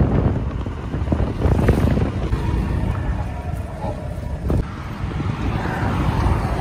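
Wind buffeting a phone microphone on a moving scooter: a loud, steady, deep rush, with the vehicle's running noise beneath it.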